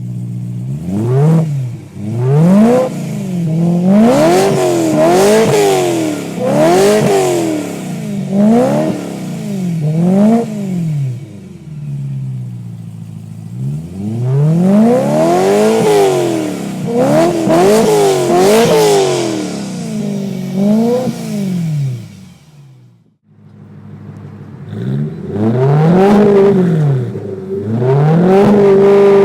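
BMW E9X M3's 4.0-litre V8 blipped repeatedly from idle through an aftermarket-style exhaust comparison setup, each rev a quick rise and fall in pitch. It settles back to idle between blips. Near the end the sound drops out briefly, then returns at idle with two more revs.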